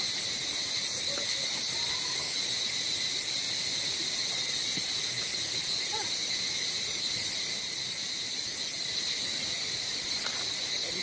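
Steady, high-pitched chorus of insects, an even drone that holds without a break.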